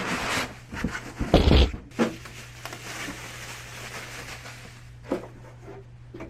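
Cardboard box and packing being handled as a diesel air heater is pulled out of it, with a heavy thump about a second and a half in, then a softer steady rustle.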